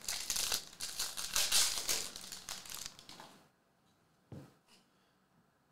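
Foil trading-card pack crinkling and tearing as it is ripped open and the cards are pulled out, for about three and a half seconds. A single soft knock follows a little over four seconds in.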